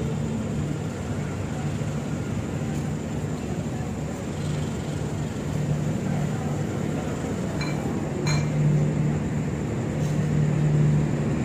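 Steady low hum of a diesel passenger train standing at the platform, swelling a little toward the end, with a short metallic clink about eight seconds in.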